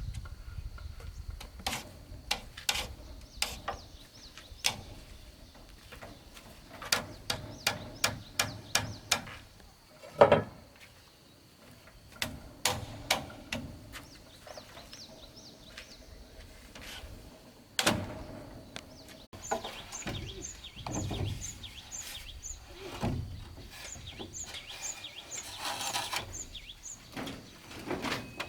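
Irregular knocks and taps of hand building work on bamboo and wood, with a quick run of strikes about a third of the way in and a heavier knock in the middle. In the second half a bird gives two runs of short high chirps.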